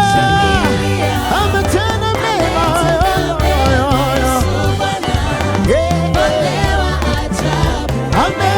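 Live gospel praise music: singing voices over a band with bass and drums keeping a steady beat.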